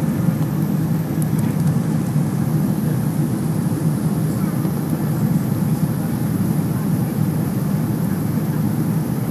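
Steady cabin noise of an airliner in flight on its approach: a dense, even low rumble of engines and rushing air, heard from inside the passenger cabin by the window.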